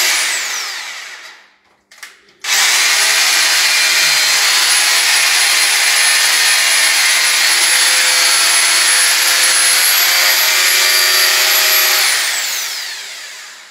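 Corded rotary hammer drill with a long bit boring into a wall. It spins down and stops at the start, starts again abruptly about two and a half seconds in, runs steadily for about ten seconds, then winds down near the end.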